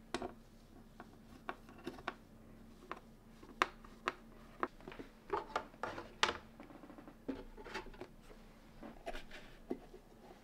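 Handling noise from the plastic parts of a Bambu Lab AMS lite and its stand: a run of irregular clicks, taps and knocks of plastic against plastic and against the benchtop, busiest in the middle.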